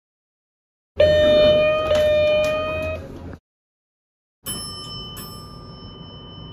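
Two elevator chimes, one after the other with a second of silence between them. First a lower-pitched ding is struck twice and rings out over about two seconds. Then a higher, brighter chime is struck twice and rings on.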